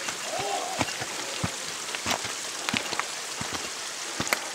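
Footsteps crunching on the loose stones of a rocky trail at a steady walking pace, about one step every two-thirds of a second, over a steady hiss.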